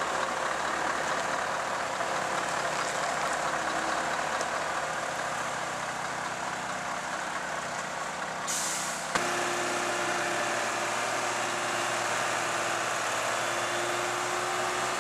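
Heavy Scania truck's diesel engine running steadily, with a short hiss of air from the air brakes about eight and a half seconds in. After a sudden click the sound changes to a steady engine drone with a faint held hum while the truck-mounted crane unloads the slabs.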